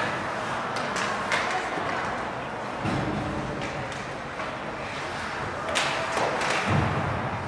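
Hockey game sounds: a handful of sharp clacks and a couple of dull thuds, typical of sticks striking the ball or puck, over steady background noise.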